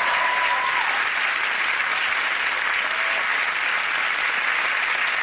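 Studio audience applauding steadily, a dense sustained clapping.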